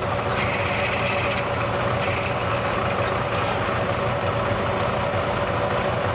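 Bridgeport milling machine's spindle running steadily with a drill bit turning in the remains of a broken stud in a cast-iron turbo manifold flange, with an even mechanical hum and a steady whine throughout.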